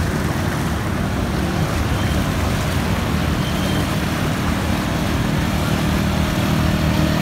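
Small motorcycle engines running at low speed as the bikes move through flood water, over a steady rush and slosh of water. The engine hum grows louder toward the end as a motorcycle comes close.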